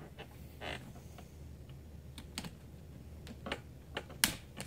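Scattered light clicks and taps of small tools and hard plastic being handled, over a low steady hum; the sharpest click comes a little past four seconds in.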